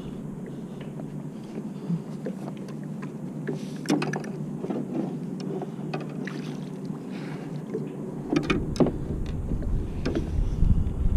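Water sloshing against a kayak, with a few short knocks and splashes. Wind rumbles on the microphone toward the end.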